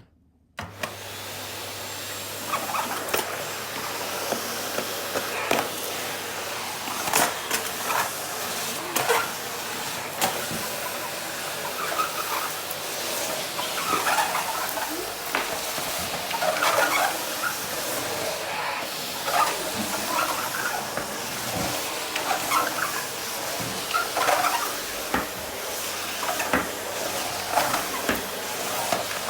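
Rowenta vacuum cleaner switched on about half a second in, then running steadily while the nozzle is worked over a kitchen floor, with irregular knocks and louder rushes every second or so.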